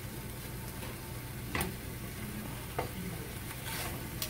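Skin-on chicken drumsticks sizzling softly in a hot nonstick frying pan, with three short clicks of metal tongs against the pan as the pieces are moved.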